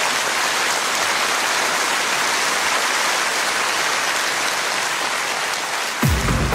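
A steady hiss of dense noise. About six seconds in, music starts with a deep low note.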